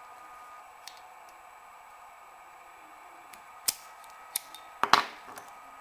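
Lever-lock picking on a four-lever padlock: sparse metal clicks of a homemade key-blank pick and a small tension screwdriver in the lock, with a louder cluster of metallic clinks about five seconds in.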